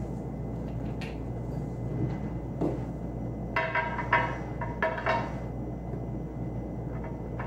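Cosmetic bottles, tubes and packaging handled and set down on a glass tabletop: a few light clicks, then a cluster of clinks and rattles around the middle, over a steady low hum.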